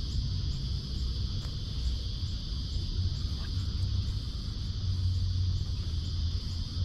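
Steady high-pitched insect drone with a faint regular pulse about twice a second, over a continuous low rumble.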